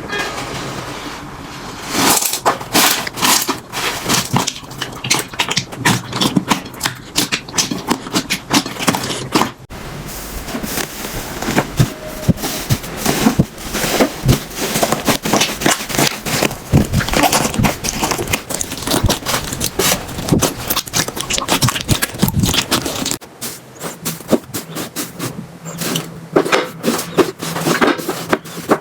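Slime being squeezed and poked by hand, making dense crackling and popping clicks. The crackle changes character abruptly twice, as one batch of slime gives way to another.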